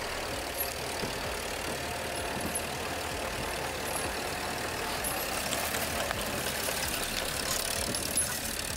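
Engine of a 1945 Willys MB jeep fitted with a UAZ engine, running steadily as the jeep ploughs through deep snow.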